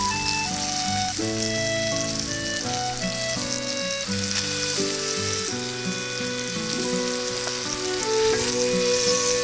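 Food sizzling as it fries in a cast iron pan, a steady high hiss, with background music playing.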